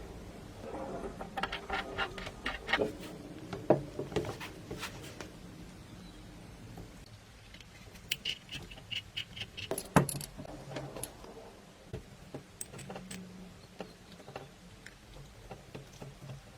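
Irregular light clicks and clinks of small metal parts being handled, with a sharper knock about ten seconds in.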